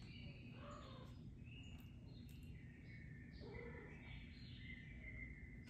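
Near silence: low room hum with faint, scattered high chirping calls.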